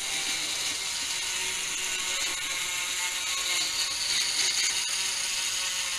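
Dremel rotary tool grinding out the bore of a hardened-steel sprocket: a steady, high-pitched grinding hiss with a short break just before the end.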